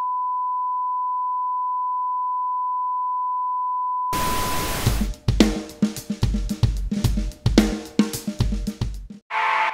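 A steady single-pitch test tone, the reference tone played over colour bars, lasting about four seconds and cutting off abruptly. It gives way to intro music that opens with a cymbal crash and runs as a drum-kit beat with low bass thumps. A sustained chord comes in near the end.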